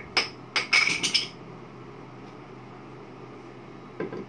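Carved wooden pieces knocking on a hard tabletop as they are handled: a quick run of sharp clacks in the first second, then one duller knock about four seconds in.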